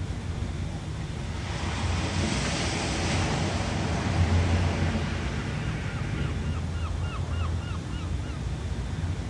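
Ocean surf washing steadily, with one wave swelling and breaking louder about two seconds in. Near the end comes a quick run of about ten short chirps, roughly three a second.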